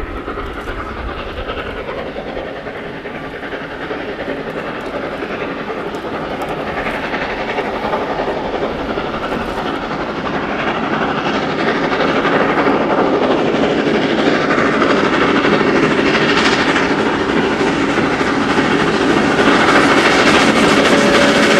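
National Railways of Zimbabwe 14A class Beyer Garratt steam locomotive working hard at the head of a mixed freight. Its exhaust beats grow steadily louder as it approaches.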